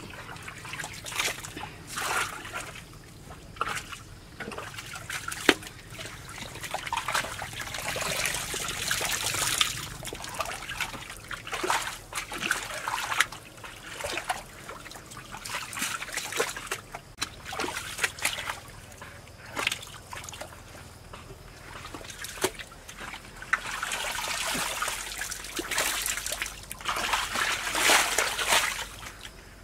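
Muddy water splashing and sloshing in short, irregular bouts at the bottom of a freshly hand-dug well pit as a man scoops and works in it with his hands, with scattered sharp knocks.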